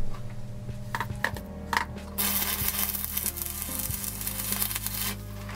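Electric welding arc crackling and sizzling for about three seconds as pieces of ring spanner are welded together, after a couple of sharp clicks.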